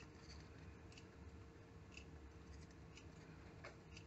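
Near silence with faint, scattered small ticks and scrapes of a thin metal round file used as a pick, working a loose thread knot on a brass tube held in a vise, over a faint steady hum.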